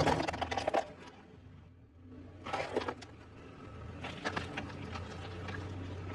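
A car being crushed: bursts of crunching and crackling metal and glass, three times, the last one longer, over a steady low machine hum.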